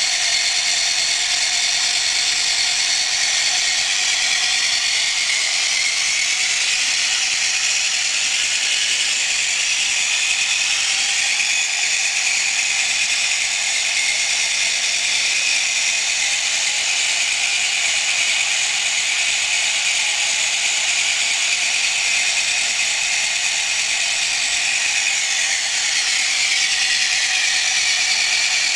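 Small DC electric motor and plastic gear train of a homemade tracked tractor model running, a steady high-pitched whine with gear chatter. The pitch shifts slightly about halfway through and again near the end.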